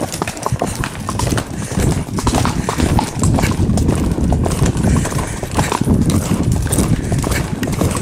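Hooves of Tennessee Walking Horses galloping on a dirt-and-gravel trail: a rapid, uneven patter of hoofbeats that grows louder a second or two in, over a steady low rumble.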